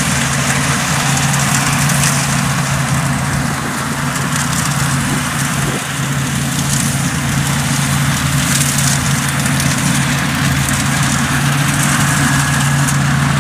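Kubota DC70 rice combine harvester running steadily while harvesting, a loud, even engine hum with the rush of the machinery over it.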